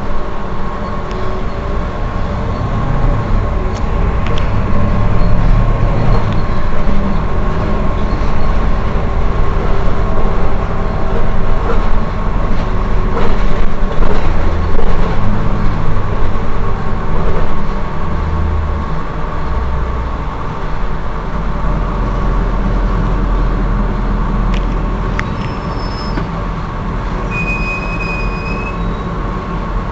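Heuliez GX 327 city bus idling at a stop: a steady engine rumble with a constant high whine over it, swelling in the middle and easing off in the last third. A few short high chirps sound near the end.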